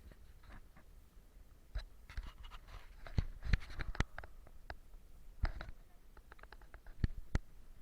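Irregular scratching and sharp clicks. They start about two seconds in, are thickest in the middle, and end with two clicks near the end.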